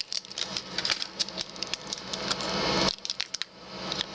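Hands opening and handling a trading-card box and its packs: rapid small clicks and crinkles, with a rising rasp that cuts off suddenly about three seconds in.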